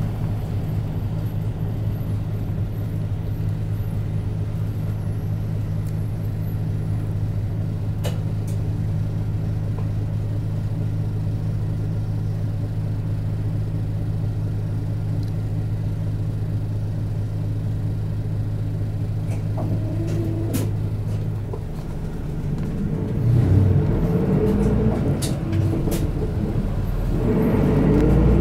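Isuzu Erga Mio city bus heard from inside, its diesel engine running with a steady drone while cruising. About three-quarters of the way in the sound dips, then the engine pitch climbs as the bus accelerates, breaks off briefly and climbs again near the end, as with a gear change.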